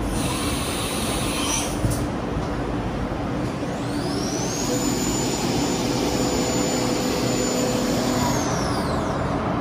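Haas VF-2D milling machine's newly installed spindle spinning up with a rising whine, holding one high pitch for about four seconds, then winding down, over the steady hum of the machine. A short hiss sounds in the first two seconds.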